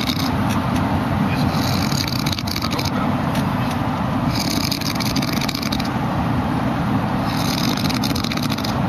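A man snoring: three drawn-out snores, about one every three seconds, over a steady low rumble.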